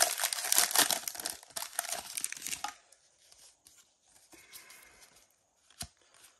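Foil wrapper of a Pokémon booster pack crinkling and tearing open for about the first three seconds. After that come faint rustles and one sharp tap near the end.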